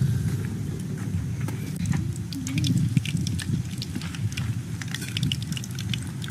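Wood fire under a wok of heating oil crackling in scattered sharp clicks, over a steady low rumble.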